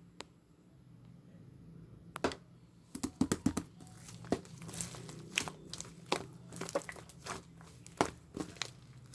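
Slime being handled, pressed and stretched, giving irregular crackling pops and clicks that start about two seconds in and get busier. One click comes right at the start, and a low hum runs underneath.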